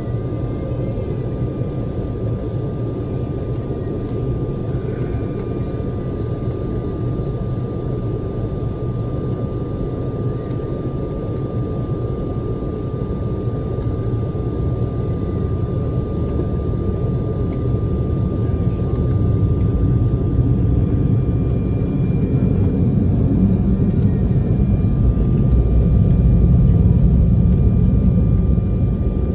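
The Embraer E190's twin GE CF34-10E turbofans heard from inside the rear cabin while the jet taxis: a steady low rumble with a thin, steady whine, growing somewhat louder in the last ten seconds.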